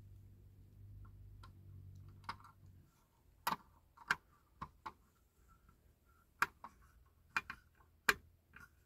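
A small screwdriver clicking against a screw and the base of a diecast toy fire engine as the screw is fitted: a handful of sharp, irregular clicks, mostly after the first three seconds.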